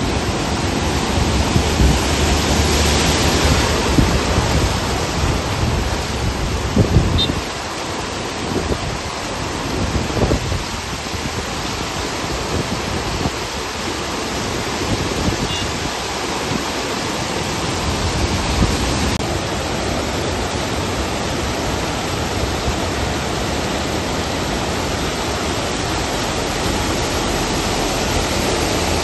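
Steady rush of floodwater flowing across a submerged road and spilling over its edge, mixed with falling rain. It is heavier and more rumbling for the first several seconds and eases slightly about seven seconds in.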